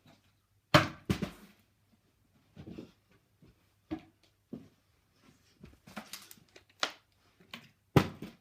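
Plastic water bottle being flipped and landing on a table: a series of sharp knocks and thuds, the loudest about a second in and near the end, with quieter bumps between.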